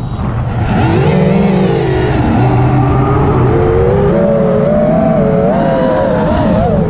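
Armattan Rooster FPV quadcopter's brushless motors and propellers whining, heard from the onboard GoPro. The pitch starts low, climbs within the first second, then wavers up and down with the throttle.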